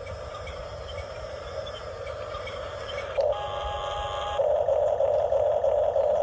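Small electric motors and gears of a radio-controlled toy excavator whirring with a fast, buzzing pulse. It is faint at first, turns into a steadier higher whine for about a second, and comes back louder near the end.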